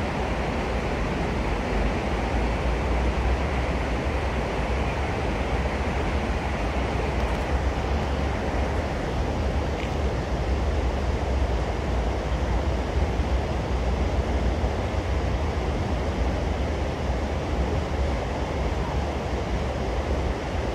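Steady, unbroken low rumble with a hiss over it and no distinct events: outdoor background noise, with no magpie calls standing out.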